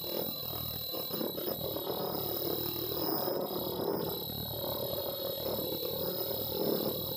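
Tie-on medical mask welding machine with its auto feeder and mask conveyor running: a steady mechanical rumble with scattered light knocks and a constant high-pitched whine.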